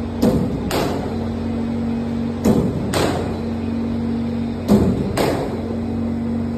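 Three pairs of sharp knocks, each pair about half a second apart and coming every two seconds or so: cricket balls fed to a batter in an indoor net and struck with a cricket bat. A steady hum runs underneath.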